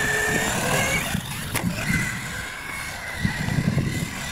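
Small radio-controlled UTV running over loose gravel: a thin motor whine that slowly rises in pitch over the crunch of its tyres, with a sharp click about a second and a half in.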